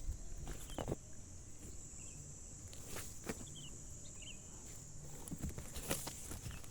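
Soft scuffling steps and light knocks over a steady high insect-like drone, with a few faint short chirps about two, three and a half and four seconds in.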